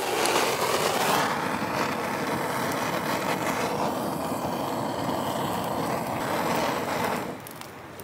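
Handheld gas torch on a canister burning with a steady hiss as its flame is played onto firewood to light a campfire. It starts with a click and shuts off about seven seconds in.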